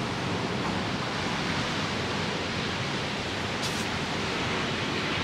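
A steady, even rushing noise, with a short high hiss about three and a half seconds in.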